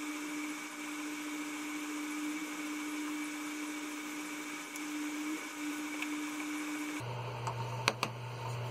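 A small motor hums steadily with a thin high whine and hiss, then cuts off abruptly about seven seconds in. A lower steady electrical hum follows, with two sharp clicks close together near the end.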